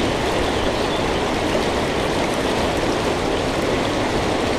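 Steady rush of water spilling over a river dam, an even noise without breaks.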